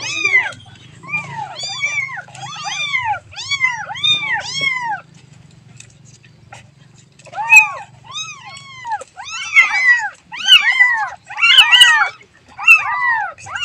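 Kitten meowing over and over for its mother: a string of short, high meows, each rising and falling in pitch. There is a pause of about two seconds midway, then the meows come faster and crowd together.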